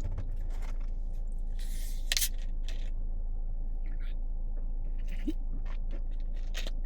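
A carbonated soda being opened: a sharp crack and a short fizzing hiss about two seconds in, with small metallic clicks and taps around it, over a steady low hum.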